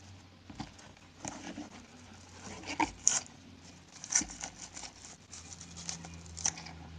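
A mail package being torn open and handled by hand: irregular crinkling, tearing and rustling of the packaging, with sharp clicks, over a faint low hum.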